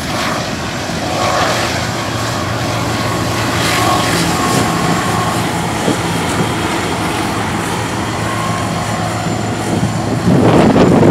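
Freight train passing close by: cars rolling over the rails, then a Union Pacific diesel locomotive in the train drones past with a steady engine hum. About ten seconds in, a sudden loud rush of wind buffets the microphone.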